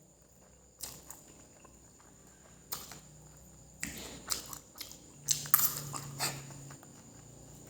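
Close-up mouth sounds of a person eating fried noodles with sautéed chili: irregular slurps and chewing, in short bursts that come thickest about four to six seconds in.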